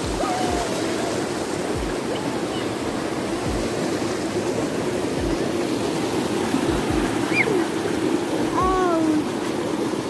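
Mountain stream rushing over rocks in a small cascade below a waterfall: a steady, unbroken roar of water, with faint voices near the end.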